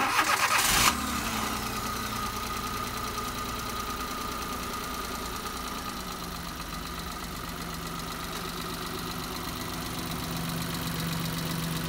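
Maruti Suzuki 800's three-cylinder petrol engine cranked by the starter and catching within about a second, then idling steadily with its distributor ignition timing freshly set.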